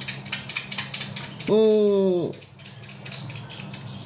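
Light clicking and tapping. Then, about a second and a half in, a woman's short closed-mouth hum, a held 'mmm' that drops in pitch as it ends; the hum is the loudest sound here.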